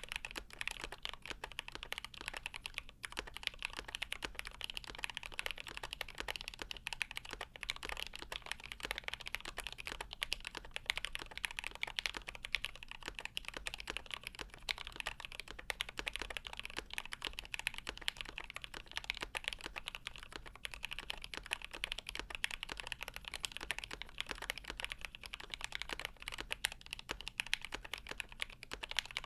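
Continuous fast typing on a GMMK Pro mechanical keyboard with lubed Milky Gateron Yellow linear switches, an aluminium plate and Geekark keycaps: a dense, even stream of key clicks.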